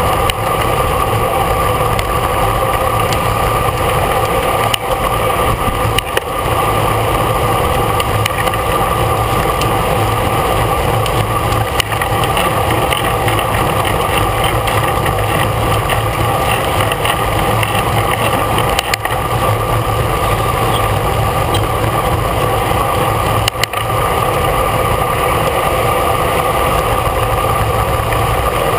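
Steady wind rush and road rumble on the microphone of a camera riding on a racing bicycle at speed, with a constant hum and a few brief knocks from the road.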